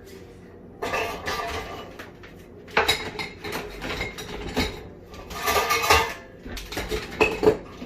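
Dishes and cutlery clattering as a dishwasher is unloaded in a hurry: repeated clinks and knocks of plates and silverware being pulled out and set down, in several bursts with short pauses between.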